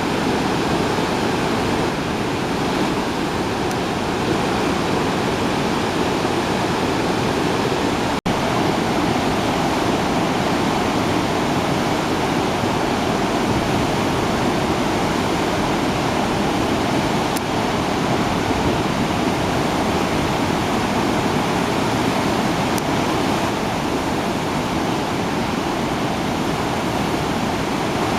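Sarpsfossen, a very large river waterfall in flood, rushing in a loud, steady wall of water noise. The sound drops out for a split second about eight seconds in.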